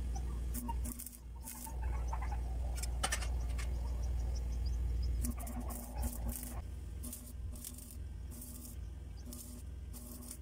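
Arc welding on the steel grill bars: short bursts of crackling, a few early on and a run of them in the second half, over a steady low hum.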